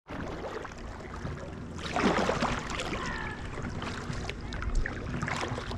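Kayak on the water: steady water and wind noise with splashing and handling knocks, loudest about two seconds in, and a brief high squeak about three seconds in.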